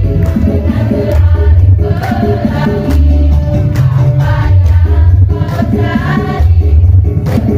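Women's choir singing in unison to an amplified electronic keyboard accompaniment, with a strong bass line and a regular percussion beat under the voices.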